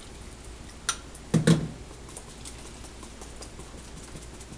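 Blender jar knocking against a wire-mesh sieve as chile pulp is rinsed and shaken through: a light click about a second in, then two quick knocks close together, with faint scattered ticks after.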